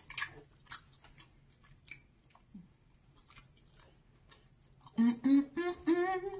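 Chewing a soft sour gummy candy: faint wet mouth clicks and smacks. About five seconds in, a woman's voice hums several short rising notes, louder than the chewing.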